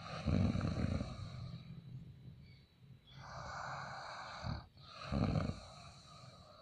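A person snoring in sleep. Two low, rattling snores come about four seconds apart, with a long, airy breath between them.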